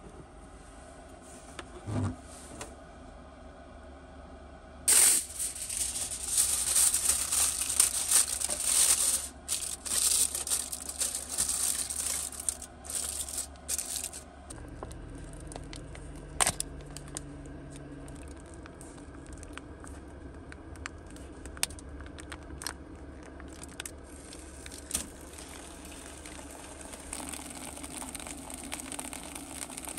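Crinkling and tearing handling noise, loud for about ten seconds from five seconds in, then quieter with a few scattered clicks.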